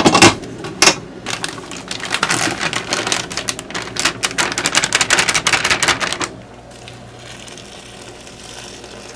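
A steel mixing bowl clacks into place on a stand mixer. Then glutinous rice flour pours from a paper bag into the bowl with a dense, rapid pattering for about five seconds that stops abruptly. It is followed by a softer, even hiss of hot water poured from a kettle onto the flour.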